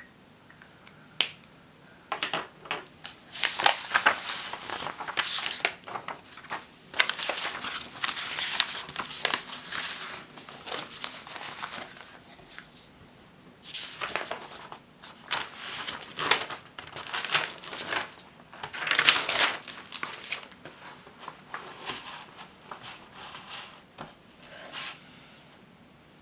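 Paper rustling and crinkling as the pages of a spiral-bound notebook are turned and folded back, in two long stretches of handling. A sharp click comes about a second in.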